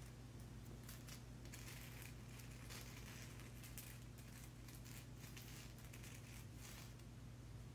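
Fingernails scratching and tapping over a crystal stone: a faint, irregular run of soft scratches and clicks, over a steady low electrical hum.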